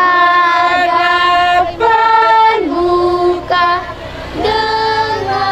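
A group of children and women singing a slow hymn together, holding each note for about a second before moving to the next.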